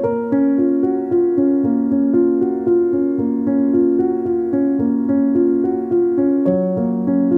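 Background music: a keyboard playing a steady pattern of notes, changing about twice a second.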